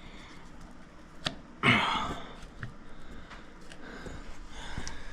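Small metal parts and tools being handled and set down on a work surface: light scattered clicks, one sharp click a little after a second in, and a brief louder rustling clatter just after it.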